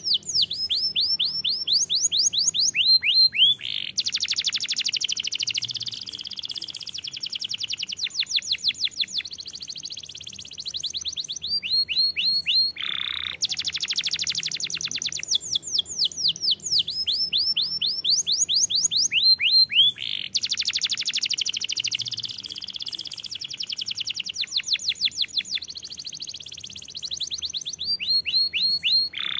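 Domestic canary singing a long unbroken song of fast trills, each trill a quick run of the same sweeping note repeated, shifting from one trill to the next every second or two.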